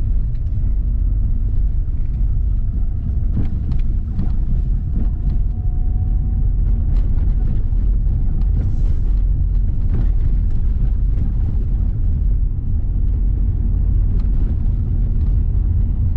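Lada Vesta heard from inside the cabin while driving on a rough, bumpy road: a steady heavy road and tyre rumble with scattered knocks from the bumps. A faint whine rises slowly in pitch as the car speeds up.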